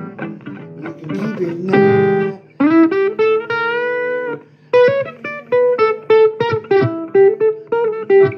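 Blues guitar playing a lead line of picked single notes, some held and bent upward, then a quicker run of short notes.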